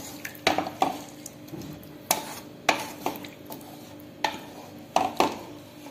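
A spatula stirring a thin egg curry in a non-stick kadai, with about eight sharp taps of the spatula against the pan, irregularly spaced, between soft scrapes and sloshes.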